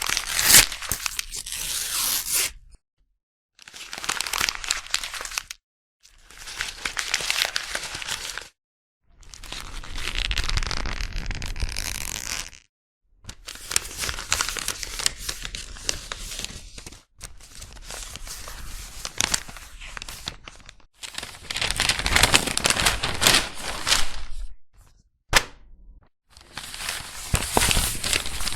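A run of separate paper sound effects, chiefly paper being torn and crumpled, each take lasting two to four seconds with dead silence between them.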